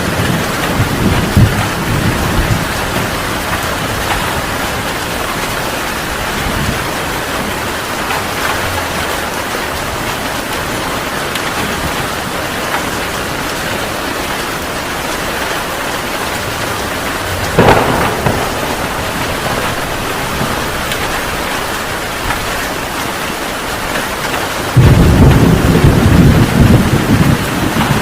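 Heavy rain pouring steadily during a thunderstorm. A rumble of thunder dies away in the first couple of seconds, a sharp thunderclap cracks about two-thirds of the way through, and a loud, low rolling thunder rumble starts near the end.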